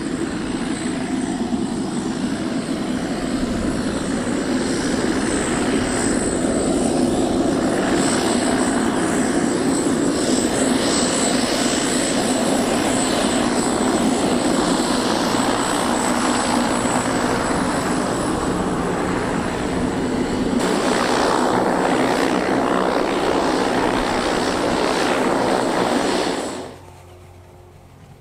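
Propeller plane engine running loud and steady just after landing. It cuts off abruptly near the end.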